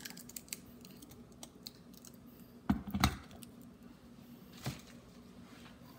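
Light clicks and taps from cardboard packaging being handled, with a cluster of louder knocks about three seconds in and one more knock near five seconds.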